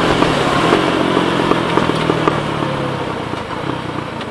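Rusi SS250 motorcycle engine running steadily under way, with wind and road noise. The engine note eases off and fades over the last second or so as the bike slows.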